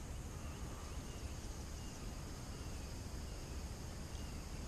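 Quiet outdoor ambience by a pond: a few faint short bird chirps over a low steady rumble.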